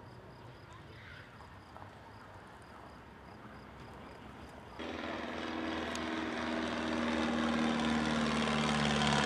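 Boeing Stearman biplane's radial engine and propeller droning, coming in suddenly about halfway through after a faint background. It drops slightly in pitch near the end as the plane passes.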